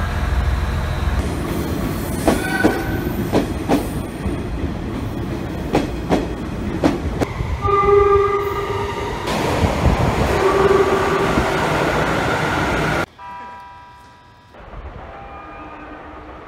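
Train horns over train rumble. A subway train coming through a tunnel sounds two horn blasts, about eight and ten and a half seconds in, after a run of sharp clacks of wheels over rail joints. After a sudden drop in level comes a short horn chord, then a fainter, distant train horn.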